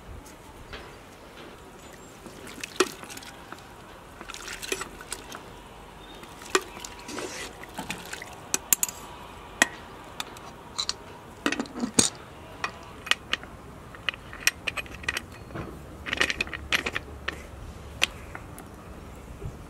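Sharp metal clinks and knocks of spoons and a large aluminium pressure cooker being handled, with liquid pouring and splashing. Near the end, the cooker's lid is fitted and its screw clamp tightened.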